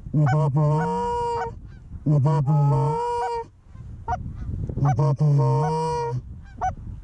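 Canada goose calls blown close by: three phrases, each a run of quick short clucks followed by a long drawn-out note, calling to an approaching flock of Canada geese.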